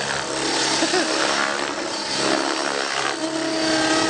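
Radio-controlled helicopter flying aerobatics, its motor and rotor running at a steady high whine, with the pitch shifting slightly as it manoeuvres.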